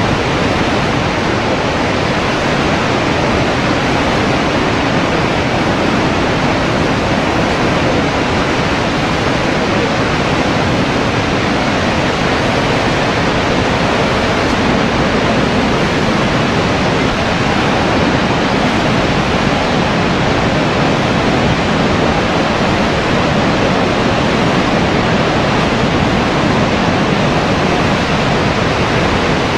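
Steady roar of the Horseshoe Falls, a huge volume of water plunging over the falls, heard as a loud, unbroken rush.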